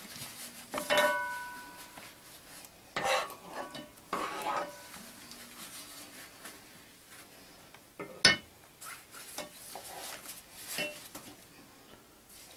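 Metal spoon scraping and clinking against a pot while scooping thick custard cream. There is a ringing clink about a second in and the loudest, sharpest knock a little after eight seconds.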